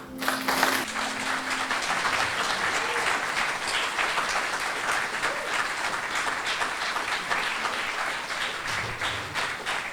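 Audience applauding, breaking out suddenly as the last note of a sung song dies away in the first second or two, then clapping steadily.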